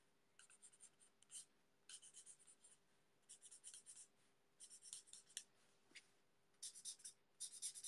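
Faint scratching of a Stampin' Blends alcohol marker's bullet tip on paper, in short runs of quick back-and-forth colouring strokes with brief pauses between them.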